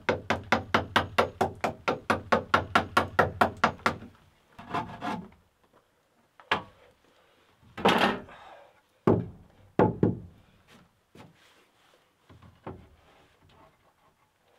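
A short hand-held blade chopping rapidly into a log door sill, about five strikes a second for some four seconds. Then a few wooden knocks and thunks as a thick plank is laid across the threshold and shifted into place, the loudest about eight seconds in.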